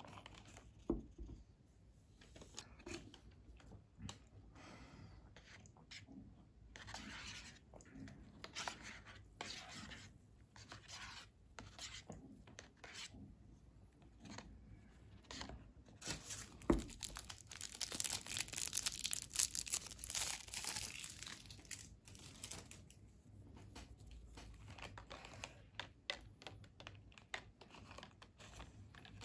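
A plastic spoon stirs and scrapes in a paper cup of root beer float, with many short scraping strokes. Over a few seconds in the middle there is a louder stretch of hissing as the stirred root beer foams up.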